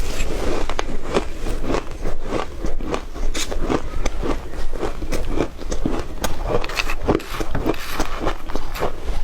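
Shaved ice being bitten and chewed: an irregular run of crisp crunches, a few each second.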